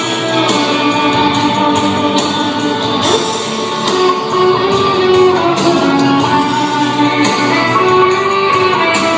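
Instrumental stretch of a pop song: guitar and other instruments play a melody over a steady beat, with no singing.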